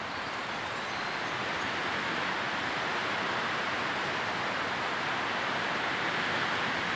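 Steady, even rushing noise of a sleep-sound track, strongest in the upper middle range, with no separate rustles, clicks or changes.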